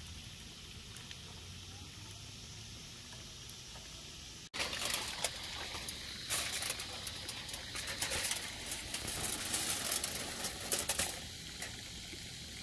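Food frying in hot oil: a faint steady sizzle, then, after a cut about four and a half seconds in, louder sizzling with dense, irregular crackling and popping.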